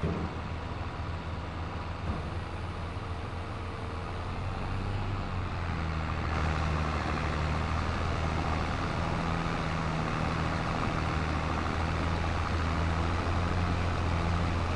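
Massey Ferguson 3690 tractor running steadily while baling dry hay with a Vermeer baler; the engine sound grows louder about five seconds in, then holds steady.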